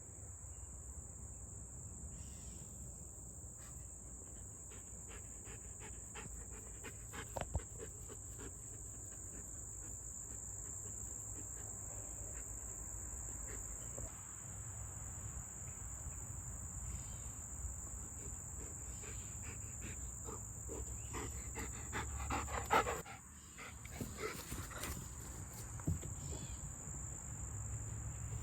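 A steady, high-pitched chorus of insects, with scattered clicks and a louder burst of knocking and rustling a little over 20 seconds in.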